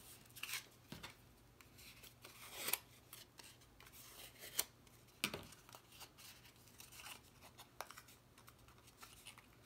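Cardstock being handled and pressed down as glued paper pieces are set in place: faint, scattered taps, scrapes and rustles of paper.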